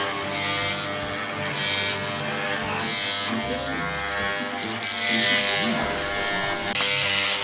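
Electric dog clippers buzzing steadily as they clip a dog's thick curly coat, the hum overlaid by a hiss that swells and fades again and again.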